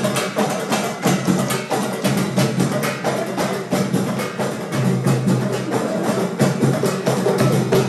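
Live Issawa music: large frame drums with brass jingles beating a fast, steady rhythm, with a sustained low tone underneath.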